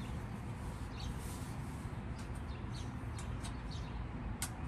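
Small birds chirping in short, repeated calls over a steady low outdoor rumble, with a couple of sharp clicks near the end.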